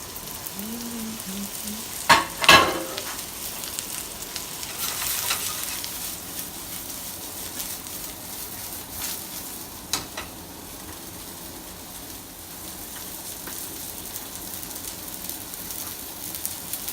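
Mushrooms frying and sizzling in a hot pan while being stirred, with a loud clatter about two seconds in and a few lighter knocks later.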